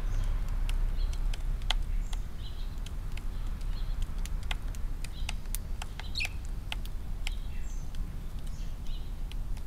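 Eurasian tree sparrows pecking grain from a feeding tray: sharp, irregular clicks of beaks on grain and tray, with short chirps now and then. A steady low rumble runs underneath.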